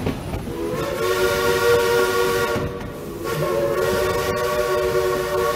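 Steam locomotive's chime whistle sounding two long blasts, a steady multi-note chord, with a short break between them about halfway through.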